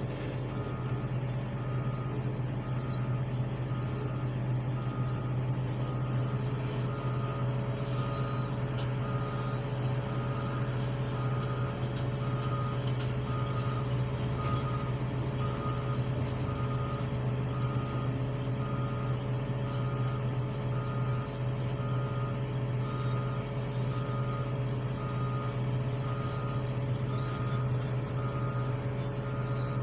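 Reversing alarm on heavy construction machinery beeping steadily, about once a second, over the steady low rumble of heavy diesel engines from dump trucks and earthmoving equipment.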